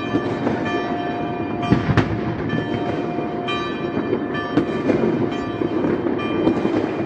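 Many distant New Year's fireworks going off at once: a continuous rumbling crackle with a few sharper bangs, the strongest about two seconds in.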